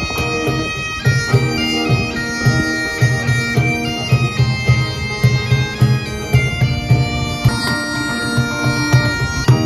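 Highland bagpipes playing a melody over their steady drones, with strummed acoustic guitar and a regular low beat underneath.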